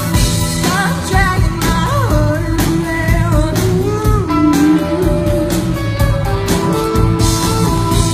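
Live rock band playing, with a woman singing lead over electric and acoustic guitars, bass and drums.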